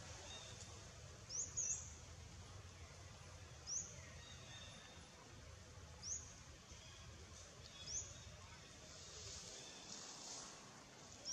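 A bird repeats a short, high, upward-sweeping call about every two seconds, the first one doubled, over a steady faint outdoor background hiss and rumble.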